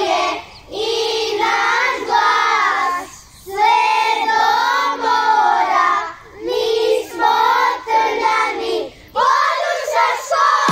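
Children singing a song together, in phrases of about three seconds with short breaks between them.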